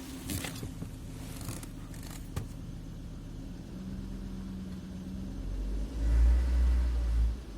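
Volvo S60 2.4i's five-cylinder engine running, then given gas: a new tone comes in around four seconds in, and from about six seconds a loud, low rumble builds and cuts off suddenly just before the end. This rumble under throttle is the strange sound the owner is demonstrating.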